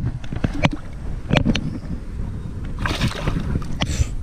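A largemouth bass being let go into shallow pond water, with a brief splash about three seconds in, over a steady low rumble and a few sharp clicks.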